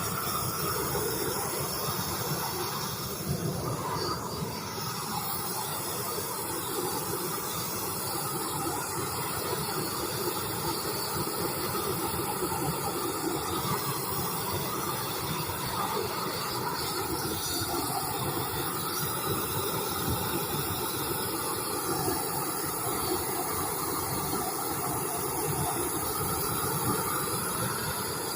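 Gas torch burning with a steady hissing rush of flame, as it scorches the surface of a chainsaw-carved wooden turtle.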